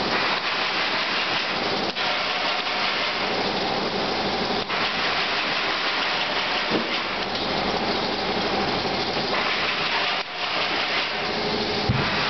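Conveyorised corrugated-box drying oven running: a steady, loud rushing hiss of machinery, broken by a few brief dips.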